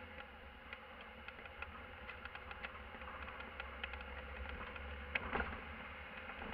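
Van cab noise while driving: a steady low engine and road drone with a thin hum over it, and scattered light rattles and clicks from the cab. A louder cluster of rattles comes about five seconds in.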